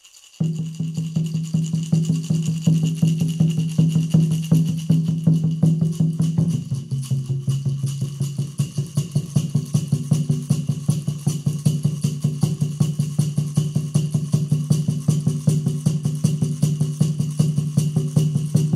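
Percussion music: a fast, even beat of short strokes with a shaken rattle, over a low held tone that steps down in pitch about six seconds in. It starts suddenly about half a second in.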